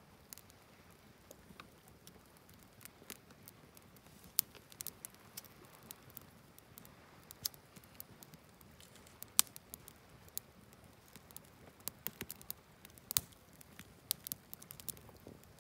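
A freshly lit wood campfire crackling, with sharp pops coming at irregular moments.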